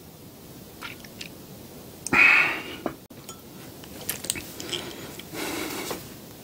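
Close-miked drinking sounds from a glass: a few small swallowing clicks, then a loud breathy exhale about two seconds in. Light clicks and a softer rustle follow near the end.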